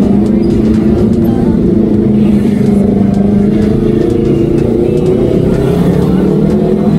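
Motorcycle engine running at a steady cruising speed while riding, a loud, even drone whose pitch shifts slightly about four to five seconds in.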